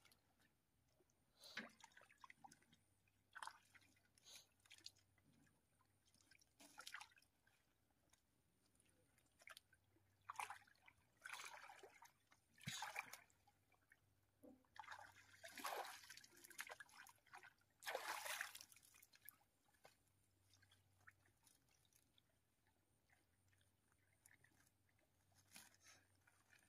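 Faint, intermittent splashing and sloshing of shallow muddy water as hands work around a tractor wheel stuck in the mud: a string of short splashes, the loudest about two-thirds of the way through.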